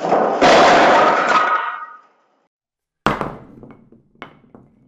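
A cluster of balls rattling and clattering as they are released and run down a drop-board toy for about two seconds, then a sharp thunk as they land, followed by a few lighter clicks as they settle in the box.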